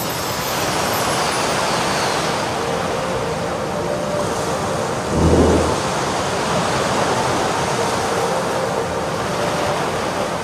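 Sea surf washing steadily, with a faint steady hum and a single low thump about five seconds in.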